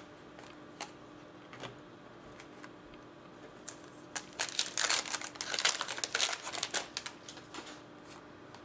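Crinkling plastic wrapping handled with trading cards. A few light clicks come first, then a run of crinkling from about four to seven seconds in.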